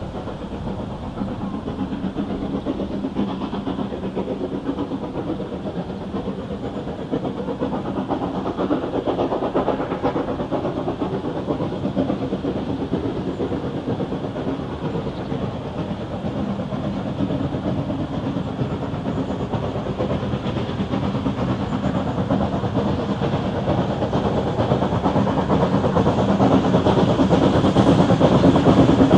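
Small steam tank locomotive hauling coaches, its running sound and wheel noise on the track growing steadily louder as it draws closer.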